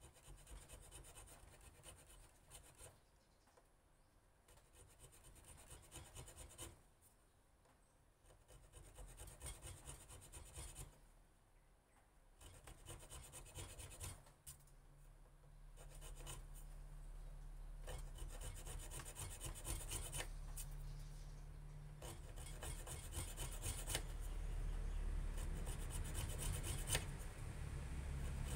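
A small hand blade scraping quick, repeated strokes into a wooden knife handle, cutting an anti-slip grip pattern. The strokes come in short runs with brief pauses, then go on almost without a break and grow louder from about halfway.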